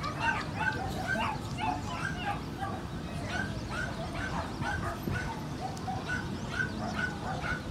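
A dog barking in quick, repeated yaps, about three a second, over a steady outdoor background hum.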